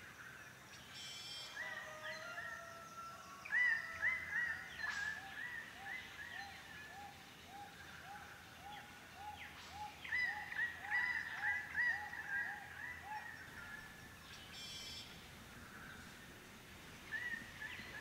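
Birds calling: several overlapping runs of short, arched notes repeated about twice a second, loudest from a few seconds in until past the middle, then again briefly near the end.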